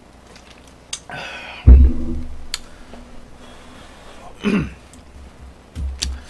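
A plastic soda bottle set down hard on the table, giving a loud thump a little under two seconds in. About three seconds later comes a short throaty burp falling in pitch, muffled behind a hand, and a softer knock near the end.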